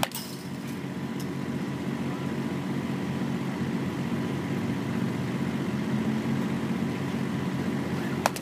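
A baseball bat strikes a ball off a batting tee with a sharp crack right at the start and again near the end. Under both, a steady low engine drone runs throughout.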